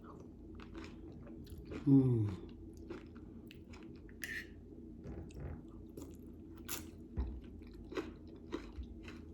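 A person chewing a mouthful of fruit, coconut and ice, with soft crunches and wet mouth clicks scattered throughout. About two seconds in, a short voiced 'mm' of enjoyment.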